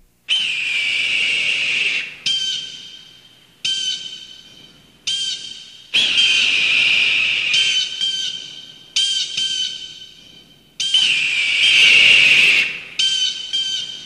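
Instrumental music starting out of silence: a held, high whistling tone of about two seconds alternates with sharply struck notes that ring and fade, in a repeating phrase.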